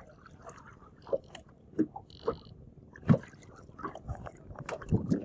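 Scattered knocks, clicks and small wet sounds as a fishing longline is hauled in hand over hand over the side of a wooden boat. They come at irregular intervals, the loudest about three seconds in.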